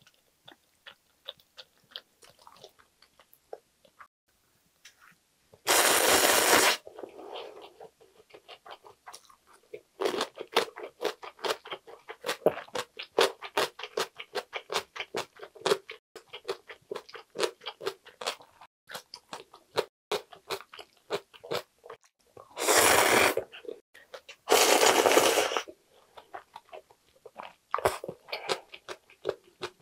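Close-miked eating: crunchy chewing of cubed radish kimchi (kkakdugi), with three loud slurps of ramen noodles and soup, one about six seconds in and two close together near the end.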